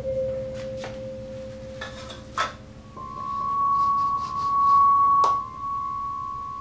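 Sustained pure ringing drone tones, a lower one giving way to a louder, higher one about three seconds in. A few sharp knocks on the wooden chopping block come through it, the clearest about five seconds in.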